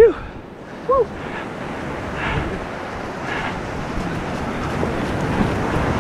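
Surf washing up a sandy beach, a steady rush that slowly grows louder, with wind on the microphone. Two short rising-and-falling calls sound at the start and about a second later.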